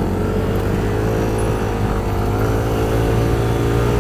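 Motorcycle engine running steadily while riding, with a slightly wavering pitch over a dense rush of wind and road noise.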